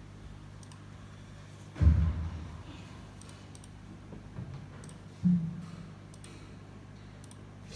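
Steady low hum from a karaoke PA system, broken by two dull low thumps about two seconds and five seconds in, with a few faint clicks.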